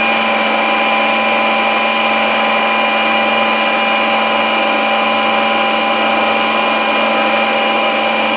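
Ninja Creami ice cream maker's motor running loud and steady on its Ice Cream program, a constant whine at one held pitch.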